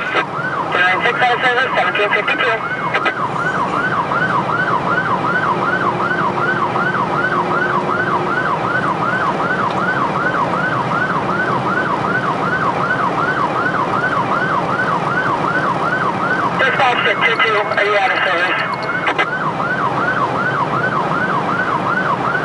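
Emergency vehicle's electronic siren in yelp mode, a fast rising-and-falling wail about three times a second, heard from inside the responding vehicle over road and engine rumble. Near the start and again a few seconds before the end, loud horn blasts sound over the siren.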